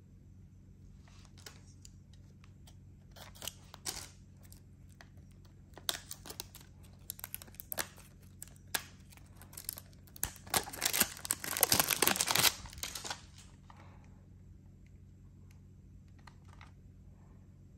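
Cellophane shrink-wrap being picked at, torn and peeled off a plastic cassette case. Scattered crinkles and small clicks build to a loud stretch of dense crinkling about ten to twelve seconds in as the wrap comes off.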